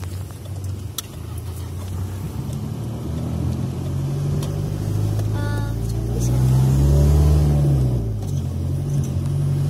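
Car engine and road noise heard from inside the moving car's cabin; the engine note rises and gets louder about six to seven seconds in, then settles back. A short high voice sounds briefly about halfway through.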